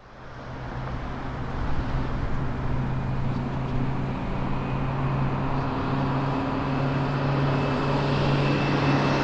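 A steady, engine-like rumble with an even low hum under it, fading in at the start and building over the first couple of seconds.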